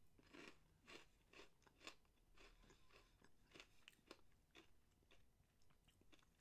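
Faint crunching and chewing of a butter cookie topped with crushed roasted coffee beans, about two crunches a second.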